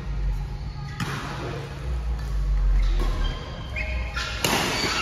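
Badminton rackets striking a shuttlecock during a rally: three sharp hits one to two seconds apart, the last, near the end, the loudest.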